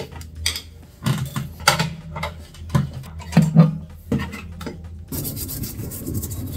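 Rummaging and handling hard objects: a string of clicks and knocks, then a steady rubbing scrape from about five seconds in.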